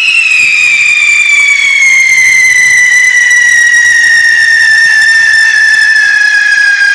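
A whistling firework in an Italian ground firework battery gives one long, loud, shrill whistle that slowly falls in pitch.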